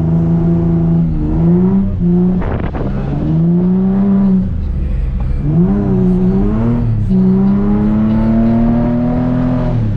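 Nissan 350Z's V6 engine revving under drift throttle, its pitch rising in several long pulls and dropping off between them. There is a short rattling burst about two and a half seconds in.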